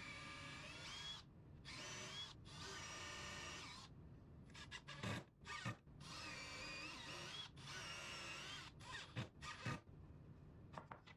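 Cordless drill running in about six short bursts, its motor whine rising and falling in pitch with the trigger, as it works at a joint in the wooden backboard frame. Two sharp knocks come near the end.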